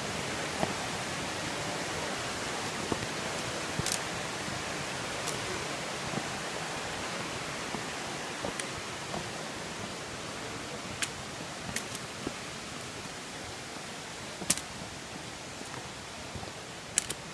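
Steady rushing of a cascading mountain creek, slowly fading, with a few sharp clicks scattered through it.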